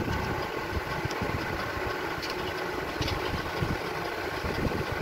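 A steady mechanical hum, like a running motor, with a few faint light rustles or clicks on top.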